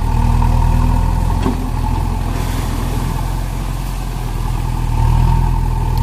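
JCB 3DX backhoe loader's diesel engine running steadily with a steady whine over it, picking up in the first second and again near the end.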